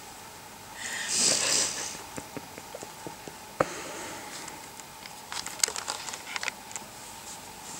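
Dogs shifting against each other on a sofa: a breathy dog snuffle about a second in, then a sharp click and a run of light clicks and rustles from the dogs moving on the blanket.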